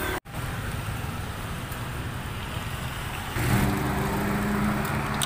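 Steady roadside traffic noise, with a vehicle engine humming close by from about three and a half seconds in. The sound cuts out for an instant just after the start.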